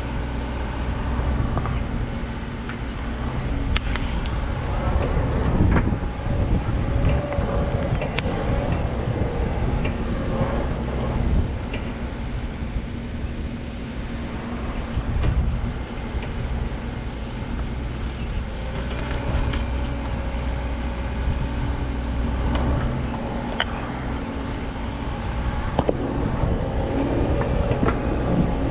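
Backhoe's diesel engine running steadily under load, its pitch shifting now and then, with scattered knocks and clanks from the machine at work.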